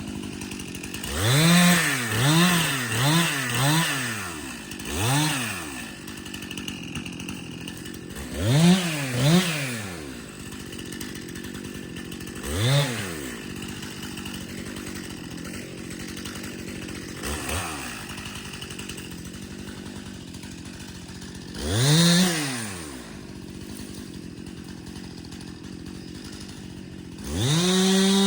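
Chainsaw idling, its throttle blipped in about ten short revs that rise and fall. Near the end it is held steady at high revs.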